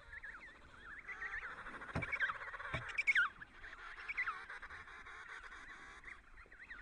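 Emperor penguin chicks calling: high, warbling whistles that wobble up and down in pitch, several overlapping. Two brief thumps come about two and three seconds in.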